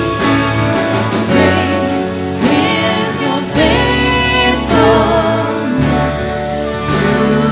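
Church worship music: a band with singers performing a praise song, voices over sustained low bass notes that change every second or two.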